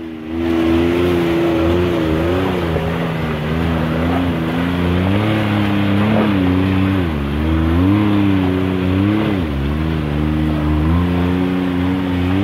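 Can-Am Maverick X3 X RS side-by-side's turbocharged three-cylinder engine running at low revs as it crawls over rocks. Its pitch dips and rises several times with the throttle between about six and ten seconds in. The tyres splash through shallow running water under it.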